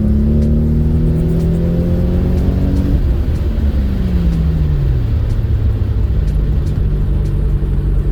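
Turbocharged 2JZ-GTE inline-six engine pulling hard under heavy throttle, its pitch high and still rising slightly. About three and a half seconds in, the revs fall away over a second or so as the throttle lifts, then hold at a steady lower drone. It pulls cleanly, without breaking up or popping, on new spark plugs.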